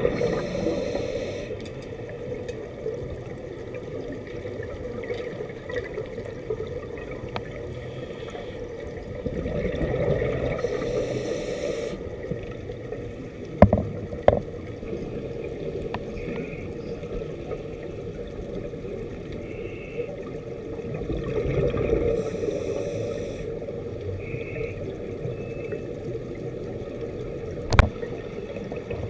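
Underwater sound of a scuba diver breathing through a regulator: a swell of exhaled bubbles gurgling about every eleven seconds, with a few sharp clicks near the middle and near the end.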